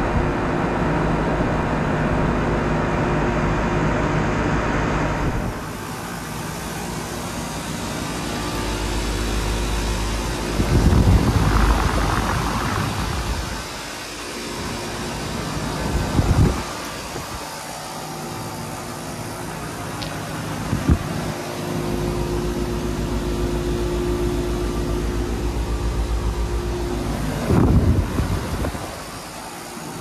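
Outdoor heat pump condenser units running in cooling mode, a steady hum of fan and compressor. A neighbouring condenser's louder hum fills the first few seconds, then the quieter 2023 Rheem Classic Endeavor RP14 unit takes over. A few brief louder rushes of noise come partway through.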